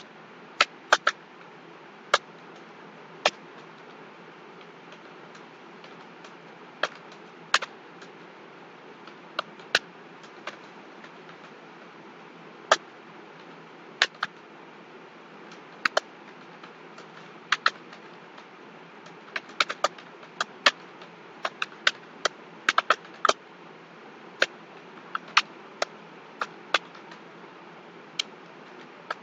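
Computer keyboard keystrokes: sharp single clicks at an uneven, slow pace, bunching into quicker runs past the middle, over a steady background hiss.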